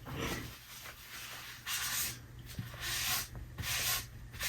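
Soft rubbing strokes on a tabletop, four or five of them about half a second each, as spilled frosting is wiped off the table.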